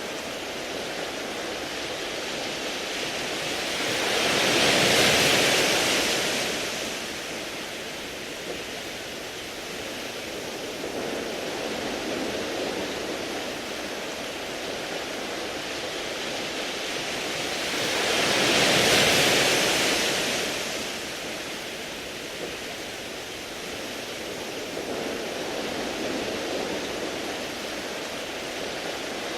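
Sea waves washing onto a beach of smooth round pebbles, a steady rush of surf with two bigger waves swelling in and falling away, about five seconds in and again near the twenty-second mark.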